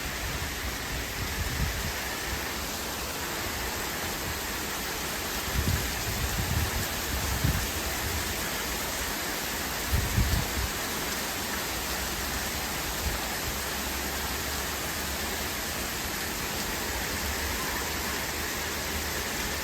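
Steady downpour of rain, an even hiss of falling water. A few brief low bumps break through, about 6 to 7 seconds in and again about 10 seconds in.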